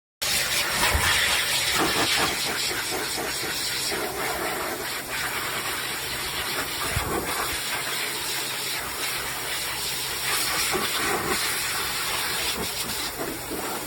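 A high-velocity pet dryer running, its air blast a steady rushing hiss.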